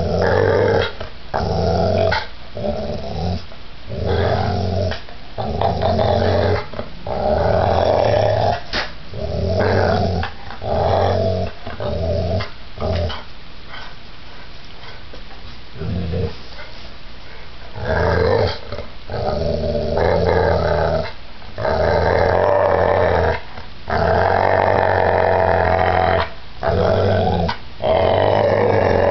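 Pit bull growling in play while mouthing bare feet, in repeated low, rumbling bouts of a second or two with short breaks, and a quieter lull in the middle.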